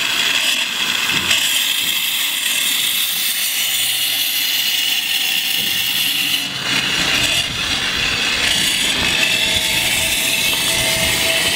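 Fresh crude oil spraying under pressure from a brass wellhead sampling nozzle into a plastic bucket, a steady hiss. About six and a half seconds in it gives way to a lower mechanical rumble with hiss from a running oil pumpjack.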